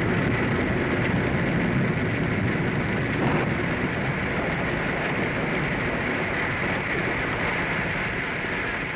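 Radio-drama storm sound effect: steady, dense rain and wind noise, a continuous hiss over a low rumble, the rumble easing slightly partway through.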